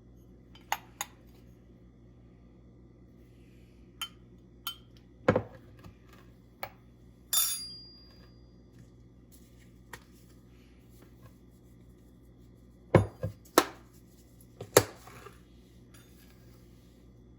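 Kitchen utensils and containers being handled while a spice blend is measured and mixed: scattered sharp taps, knocks and clinks of glass and metal. One clink about seven seconds in rings briefly, and a cluster of louder knocks comes near the end.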